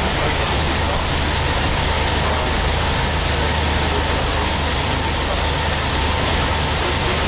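Steady running noise inside the passenger saloon of a ČD class 460 'Tornádo' electric multiple unit travelling at speed: a low, even rumble of wheels on rails with a faint steady high tone.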